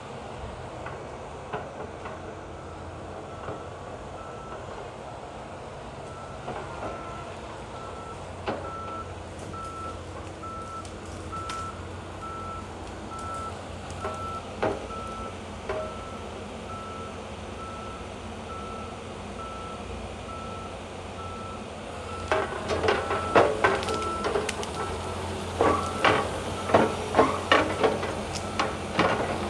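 Grapple skidder's diesel engine running as it backs up, its reversing alarm beeping about twice a second. In the last several seconds come a run of loud knocks and clanks as the grapple comes down on the logs.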